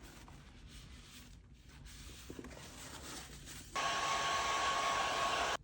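Heat gun blowing: a steady rushing hiss with a thin whine in it. It comes on much louder about two-thirds of the way through and cuts off suddenly.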